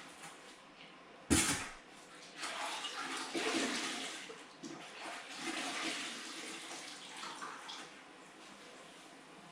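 A sharp knock, then water sloshing and splashing in uneven washes for several seconds.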